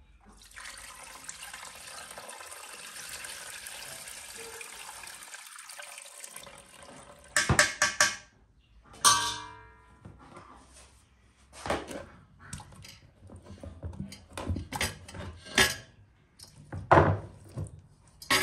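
Broth poured through a fine-mesh metal strainer into a large aluminium pot, a steady splashing for about seven seconds. Then the strainer knocks against the pot a few times and rings once, followed by scattered thuds of potato chunks dropped into the pot.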